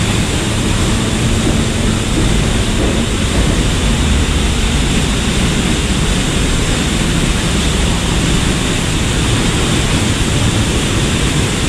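A large waterfall with a heavy flow of water plunging down: a loud, steady, unbroken rush of falling water.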